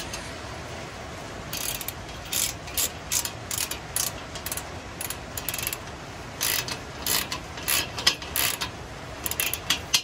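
Socket ratchet clicking in short, irregular runs as the exhaust tip is tightened onto the pipe, starting a second or two in.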